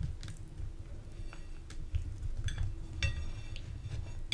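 Flour tortilla wrap being folded and rolled by hand on a plate: soft handling and rustling of the tortilla, with scattered light clicks and a few brief clinks against the plate around three seconds in.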